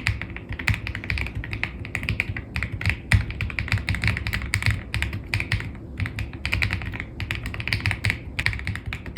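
Fast, continuous typing on a mechanical keyboard fitted with Skytear Blue switches: a dense stream of sharp keystroke clicks.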